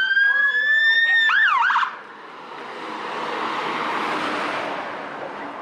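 Fire engine siren sounding a slowly rising tone, then switching to fast up-and-down sweeps for a moment before cutting off about two seconds in. The fire engine's engine and tyre noise then swells and fades, loudest about four seconds in, as it passes.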